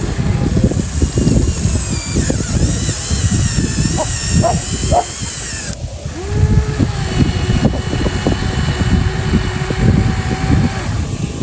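Small electric motors of radio-controlled model construction machines whining and shifting in pitch, over constant clattering and crunching.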